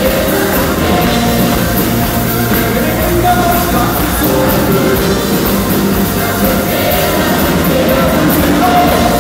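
Live rock band with a large gospel choir performing a song together: electric guitars, drums with cymbal hits, and many voices singing, loud and steady throughout.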